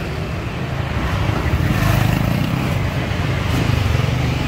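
Road traffic: a steady low rumble of passing motor vehicles that swells about two seconds in.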